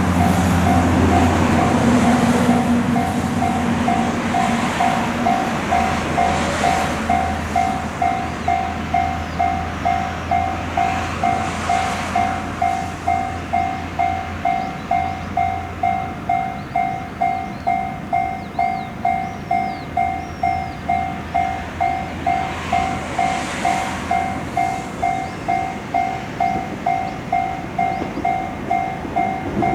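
Japanese level crossing warning bell ringing in a steady, even "kan-kan" rhythm throughout, while a train rumbles across the crossing, its noise fading away about halfway through.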